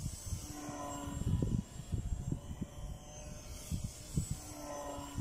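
High-wing radio-controlled model airplane's motor and propeller buzzing as it flies circuits, swelling and bending in pitch as it passes close twice, about four seconds apart. Low gusts of wind buffet the microphone throughout.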